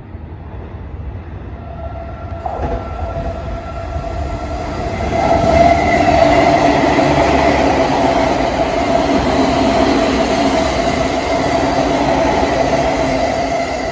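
JR 209 series electric commuter train running through a station at speed without stopping. The sound builds as it approaches, and from about five seconds in the train passes at full loudness: a steady rush of wheels on rail with a held steady hum over it.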